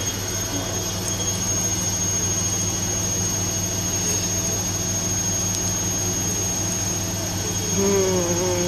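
Bosch washing machine spinning at 800 rpm with an unbalanced load: a steady motor hum with a thin, high, steady whine over it.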